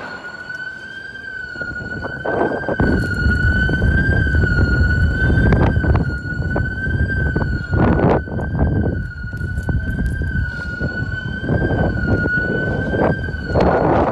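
A continuous high electronic alarm tone, holding almost one pitch with a slight slow waver. Under it is heavy low rumbling, with a few knocks from the phone being handled as it is carried.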